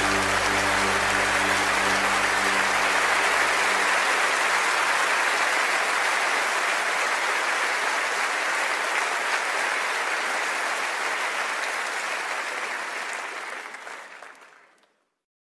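The final chord of a hymn dies away in the first few seconds under steady applause from an audience, which fades out near the end.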